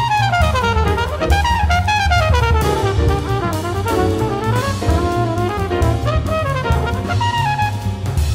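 Background music: up-tempo jazz with a brass melody running up and down over drum kit and bass.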